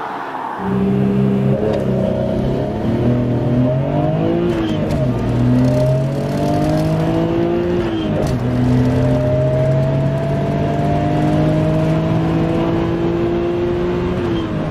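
Nissan Skyline GT-R R32's twin-turbo straight-six heard from inside the cabin, accelerating hard through the gears. The engine note rises, drops back at gear changes about five and eight seconds in, then climbs slowly through a long final pull. In the first half-second the falling note of the car passing by fades out before the switch to the in-car sound.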